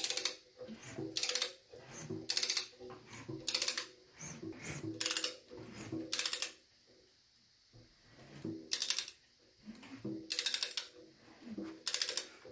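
A ratchet clicking in short strokes, roughly one a second with a pause of about two seconds in the middle, as the Pontiac V8 is turned over by hand. This cycles the valvetrain so the rocker tip wipes a dry-erase mark off the valve stem, to check pushrod length.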